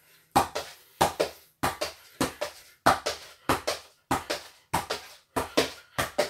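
A football being kicked up by foot and bouncing on a wooden floor: a steady run of about ten double thuds, roughly one and a half a second.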